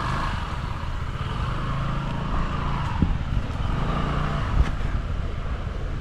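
A motor vehicle's engine running steadily at idle, with a couple of faint knocks in the middle.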